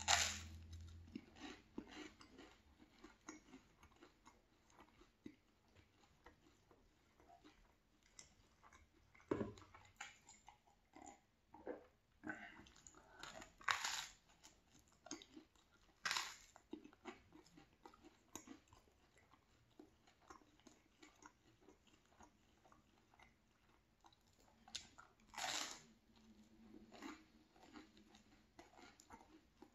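Close-up biting and chewing of crunchy toast spread with butter and strawberry jam: soft chewing and mouth sounds, with a louder crunch every few seconds.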